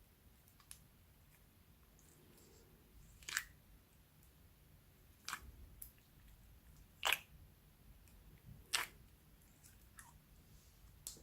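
Slime being squished and worked by hand, making four short, sharp sticky pops about two seconds apart, with fainter clicks between.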